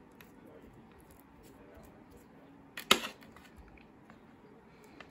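A metal spoon spreading mayonnaise on bread, mostly quiet with a few faint clicks and one sharp knock of the spoon about three seconds in.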